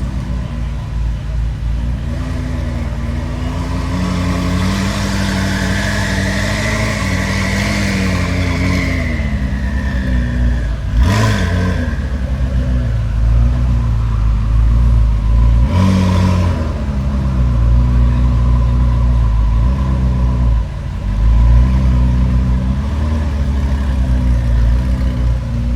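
Koenigsegg Jesko Attack's twin-turbo flat-plane-crank 5.0-litre V8 running near idle, its pitch wavering slightly. There is one sharp crack about halfway through and a shorter burst a few seconds later.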